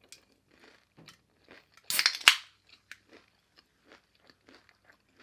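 A bite into a crispy battered onion ring: one loud crunch about two seconds in, then close-miked chewing at a steady rhythm.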